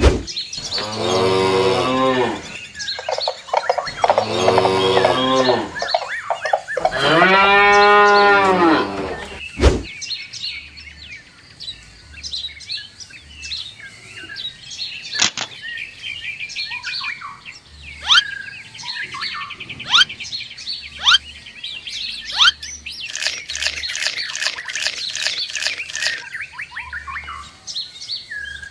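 Cow mooing three times, each call about two seconds long and the third the longest, followed by birds chirping repeatedly, busiest near the end.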